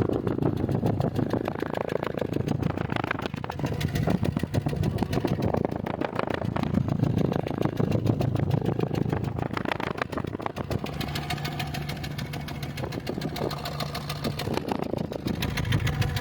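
2007 Honda City's four-cylinder petrol engine idling with a misfire. The mechanic traces the misfire to low compression in cylinder 1 from leaking intake and exhaust valves.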